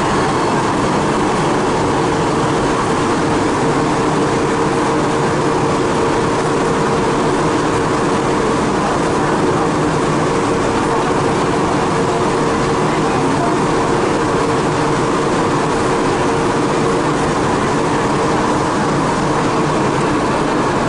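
Interior running noise of a Siemens VAL 208 rubber-tyred driverless metro car on the move: a steady rushing with a steady whine that sets in about two seconds in and fades near the end.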